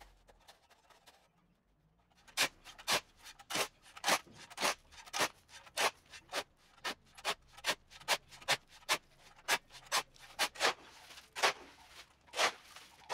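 Steel shovel scraping across paving bricks and through sand, cement and stone as concrete is mixed by hand: a run of quick scrapes, about two a second, starting about two seconds in.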